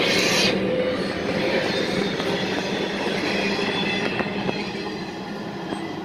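Empty freight well cars rolling past at close range, steel wheels rumbling on the rails with a thin wheel squeal and a few sharp clicks of wheels over rail joints past the middle.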